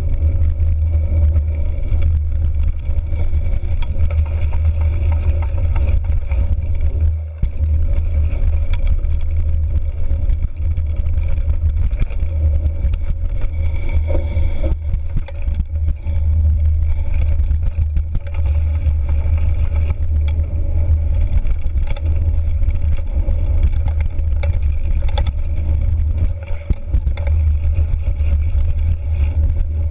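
Bicycle rolling along a dirt forest trail, heard from a camera mounted on its handlebars: a steady, loud low rumble of wind and tyre noise, with small rattles from the bike over the bumps and a faint steady whine.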